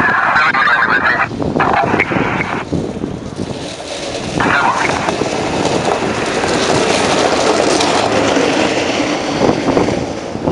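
Ambulance horn sounding three blasts: a long one at the start, a second soon after, and a shorter one about four seconds in. Then the ambulance's engine runs as it drives close past.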